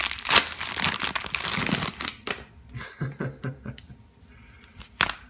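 Clear plastic packaging crinkling and tearing as it is pulled open by hand, loud for about the first two seconds. Then quieter rustling as the socks come out, and one sharp click near the end.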